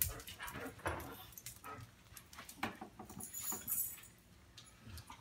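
Yorkshire terrier's claws clicking lightly and irregularly on a hardwood floor as he walks, with a short metallic jingle about three and a half seconds in.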